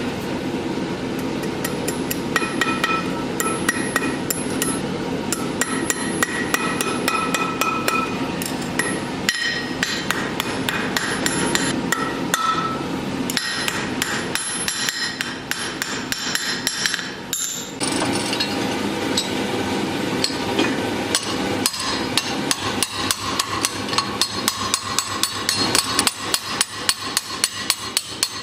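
Blacksmith's hammer striking hot steel on an anvil in quick repeated blows, each followed by a short metallic ring. The blows settle into an even rhythm of about three a second near the end.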